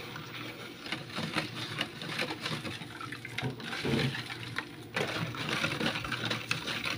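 White plastic spoon stirring and scraping around a plastic tub of cold water, dissolving stain-remover powder: a fast run of light clicks and swishing, a little louder in the last couple of seconds.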